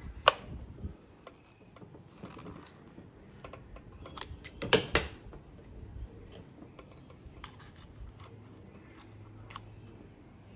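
Scattered sharp clicks and knocks of equipment being handled, two of them louder than the rest: one just after the start and one about five seconds in. A faint low hum comes in during the last few seconds.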